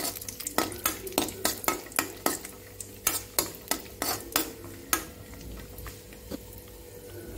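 A steel spoon scraping and clinking against a steel kadai as cashews and raisins are stirred while frying in ghee, with a light sizzle underneath. The clinks come two or three times a second, then thin out in the last couple of seconds.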